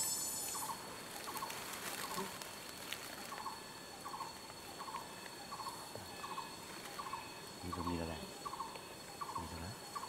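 Outdoor forest ambience: a short animal call near the same pitch repeats evenly about twice a second, over a steady thin high insect whine. A high buzz stops within the first second, and two brief low sounds come near the end.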